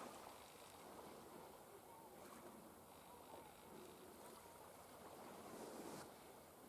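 Faint small sea waves washing and lapping on the shore, swelling a little and ebbing, loudest shortly before the end.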